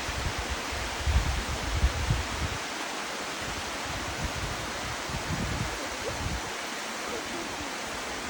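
Waterfall's steady rush of falling water, a continuous even hiss. Low rumbling surges come in about a second in and again around five seconds.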